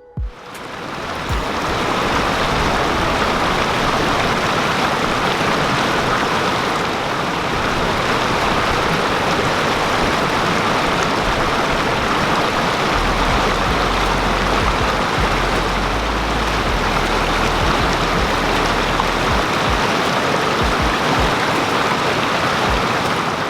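Steady rush of flowing water, starting and stopping abruptly, with a low rumble underneath for several seconds past the middle.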